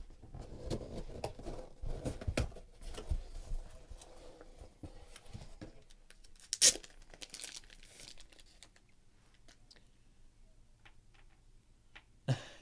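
Cardboard box and its packing being torn open and rustled, with one brief loud rip about six and a half seconds in. After that comes a quieter stretch of light clicks as cards in plastic holders are handled.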